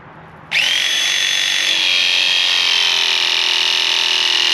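Ridgid 241 ProPress battery-powered press tool running a press cycle, crimping a 3/4-inch ProPress fitting onto copper pipe. Its motor starts abruptly about half a second in and keeps up a steady high whine, its pitch falling slightly.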